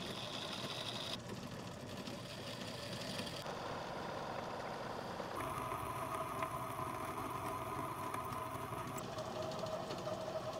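Homemade Gingery metal lathe running and turning down a steel shaft, the cutting tool taking chips off it. The steady running sound changes abruptly several times.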